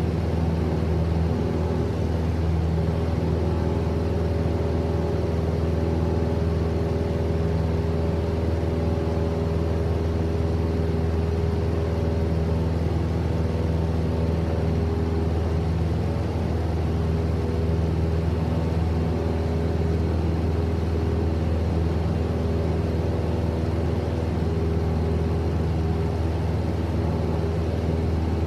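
Cabin interior of a single-engine propeller Cessna in cruise flight: the piston engine and propeller give a steady, unchanging drone with a deep hum and a layer of airflow hiss.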